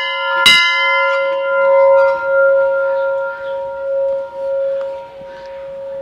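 Hanging brass temple bell struck by its clapper, rung by hand, with one strike about half a second in. The ringing from it and the strikes just before carries on: the higher tones die away within a few seconds while a steady low hum lingers and slowly fades.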